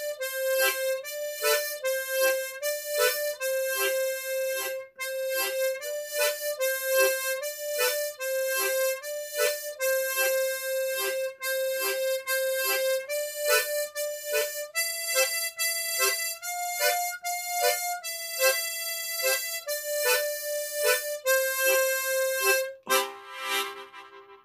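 A harmonica plays a simple melody in the after-bass technique, a brisk oom-pah rhythm with a short chord stab after each melody note. It ends on a held final note that fades out.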